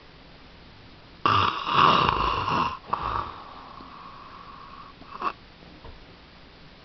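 A loud, rasping snore lasting about a second and a half, then a shorter second snore that trails off into a thin whistling wheeze, and a brief snort about five seconds in.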